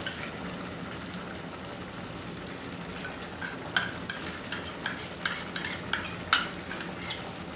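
Thick spinach-and-paneer gravy simmering in a pan with a steady low sizzle. From about three seconds in, a spoon makes a string of sharp clicks and taps against the pan and the cream cup as cream is spooned in and stirred through.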